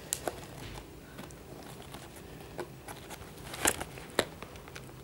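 Fingers handling a cardboard trading-card box, picking and tapping at it in a scatter of small clicks and scrapes, with two louder clicks in the second half.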